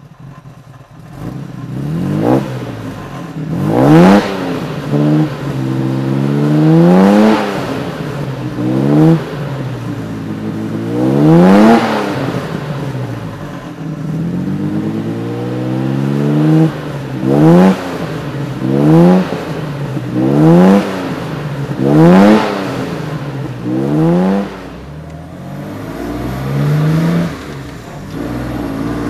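1959 Jaguar XK150's 3.4-litre straight-six engine revved again and again. Each rev climbs in pitch and drops back to a steady idle, with several quick revs close together in the second half.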